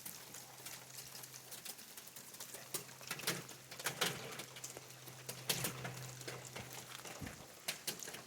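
Irregular taps and drips of rainwater pattering on surfaces, over a faint steady hiss and a low hum.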